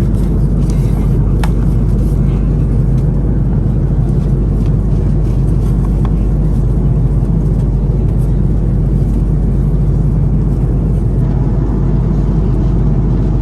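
Steady low roar inside the passenger cabin of an Airbus A330-200, the drone of its engines and airflow in flight, even in level throughout.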